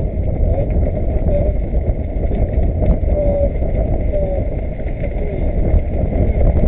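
Wind buffeting the microphone with water rushing past the hull of a sailing yacht under way, a steady low rough noise.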